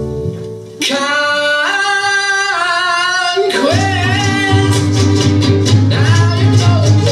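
Music with singing: a voice holds long notes that step upward in pitch. About three and a half seconds in, a steady bass line and rhythmic percussion come in beneath the voice.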